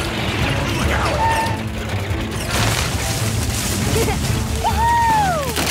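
Cartoon soundtrack: background music layered with mechanical sound effects, with a noisy crash about halfway through. Near the end a whistling tone rises briefly, then glides down.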